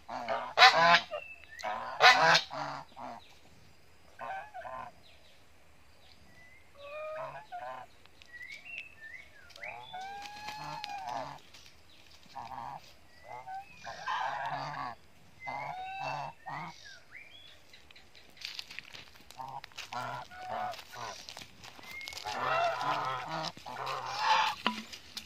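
White domestic geese honking and calling: loud honks in the first couple of seconds, softer scattered calls through the middle, and a louder run of honking near the end.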